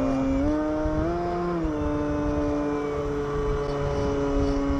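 FlyZone Super Cub RC plane's electric motor and propeller whining in flight. The pitch steps up twice in the first second and a half as the throttle changes, drops back, then holds steady.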